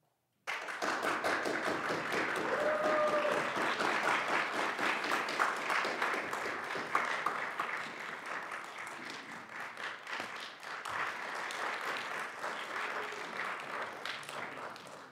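Audience applauding: dense clapping that starts suddenly about half a second in and gradually thins out toward the end.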